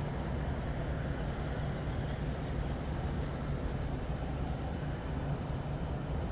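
Steady low rumble of a running engine, even and unbroken, with no horn or sudden sounds.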